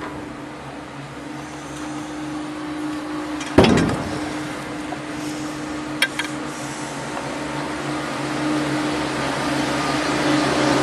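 Chairlift running: a steady mechanical hum from the lift machinery, growing louder as the chair nears the station. A sharp clunk from the lift about three and a half seconds in is the loudest sound, and a smaller click follows about six seconds in.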